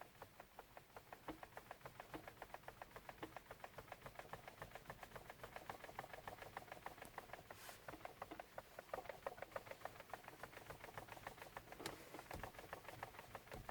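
Lada Vesta steering column giving a small plastic knock, faint quick clicks several a second, as the steering wheel is turned slightly and sharply one way then the other. The owner wonders whether it is a manufacturing defect.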